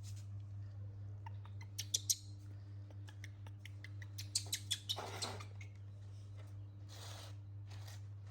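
Small clicks and short rustling hisses from a baby monkey eating fruit, with a cluster of clicks about two seconds in and another just before halfway. A steady low electrical hum runs underneath.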